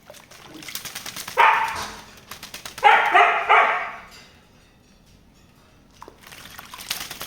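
A lory (nuri parrot) giving two loud, harsh squawks while bathing, the second broken into a rapid pulsing run. Between and after the calls come quick runs of splashing and fluttering.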